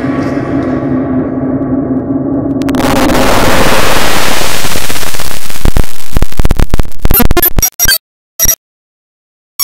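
Harshly distorted, clipped edit audio: a held buzzing tone that cuts abruptly about three seconds in to loud harsh noise, which breaks into stuttering chops and stops about eight seconds in, with two short blips after.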